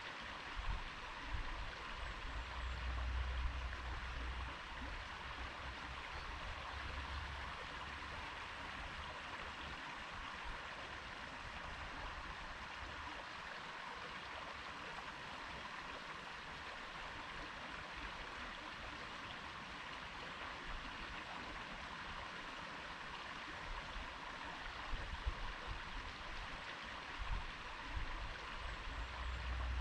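A stream flowing: a steady, even rush of water, with spells of low rumble in the first several seconds and again near the end.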